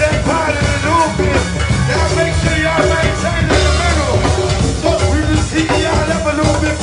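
Go-go band playing live: a steady, driving percussion groove with singing over it.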